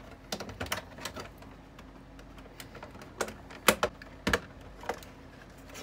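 Irregular sharp clicks and taps of plastic parts being handled and pried apart while a dehumidifier's casing is taken off, the loudest few clicks coming about three to five seconds in.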